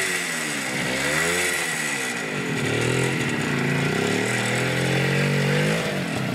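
An old motorcycle engine revving hard and unevenly as the bike churns through deep mud ruts, its pitch climbing and dropping several times as the rider works the throttle, and falling away near the end.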